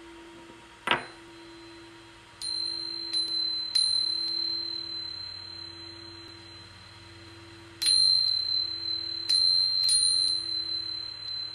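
Brass singing bowl ringing with a steady low hum, with a sharp knock about a second in. A high, bright, bell-like ping is then struck six times, in two groups of three, each ringing on.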